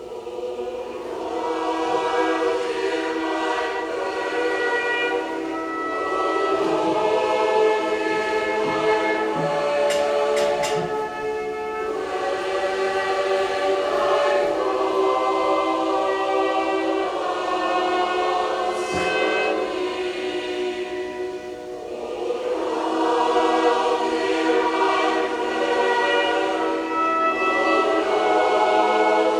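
Choral music: a choir singing slow, sustained chords in long phrases, starting suddenly.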